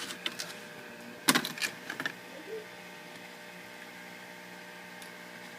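A handful of sharp clicks and knocks in the first two seconds, the loudest about a second and a half in, as small tools and parts are handled on a workbench, over a steady electrical hum.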